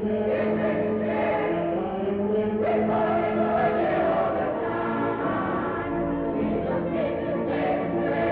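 Choir singing a gospel song in long held notes.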